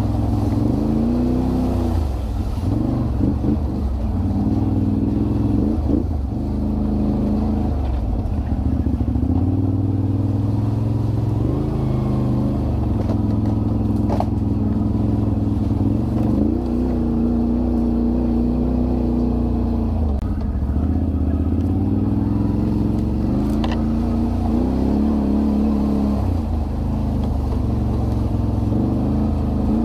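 Can-Am Renegade 1000 ATV's V-twin engine running under way, its revs rising and falling again and again as the throttle is worked, with a couple of brief clicks.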